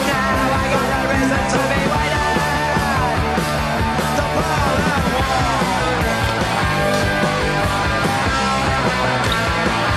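Rock music soundtrack.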